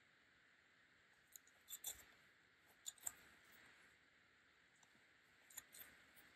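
Near silence with a few faint clicks and rustles: a plastic yarn needle and yarn being worked through crochet stitches by hand, whip-stitching the top of a crocheted bauble.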